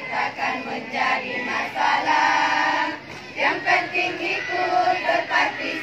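A group of women singing together in unison as they march, with a few held notes in the second half.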